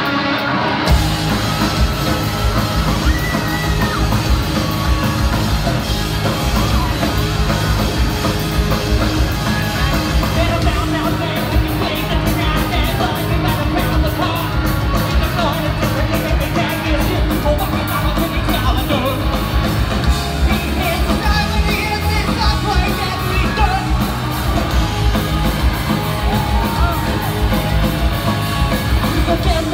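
Live post-hardcore rock band playing loud with yelled vocals, electric guitars, bass and drums, heard from the audience in a theatre hall. The full band comes crashing in about a second in, after a guitar-only stretch.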